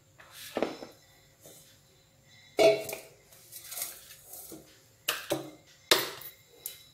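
A few separate knocks and clinks of kitchen bowls being handled: a stainless steel mixing bowl set down on a tabletop, then a plastic bowl knocked against it as margarine is tipped in.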